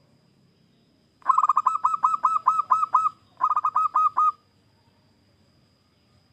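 Zebra dove singing, starting about a second in: a quick run of about ten clipped, hooked cooing notes, then after a short pause about five more.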